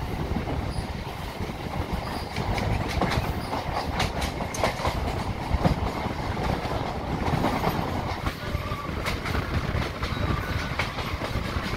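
MEMU electric passenger train running at speed, heard from on board: a steady rumble of the wheels with irregular clacks as they cross rail joints.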